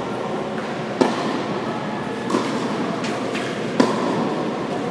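Tennis rackets hitting the ball during a rally: a sharp hit about a second in on the serve, a fainter one near the middle and another sharp one near the end. Underneath is the steady background noise of a large indoor tennis hall.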